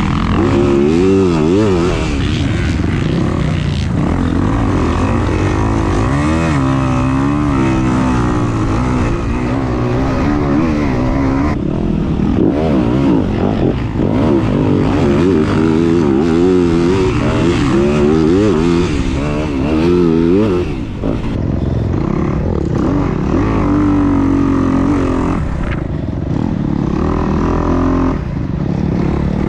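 Motorcycle engines running on a track, their pitch sweeping up and down again and again as the riders work the throttle and change gear. There is a brief dip in level about twenty-one seconds in.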